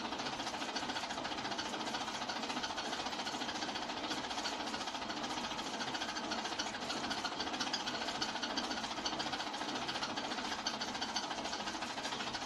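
Hand-cranked 1908 35mm film projector running, its mechanism giving a rapid, even ticking as the film is cranked through.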